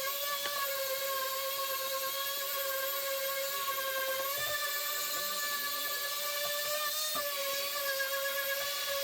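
A small electric motor running with a steady high-pitched whine. Its pitch shifts slightly about four seconds in and again near seven seconds.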